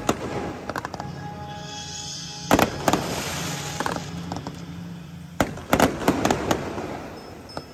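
Fireworks bursting overhead: a series of sharp bangs at irregular intervals, with a quick run of them from about five to six and a half seconds in, over steady background music.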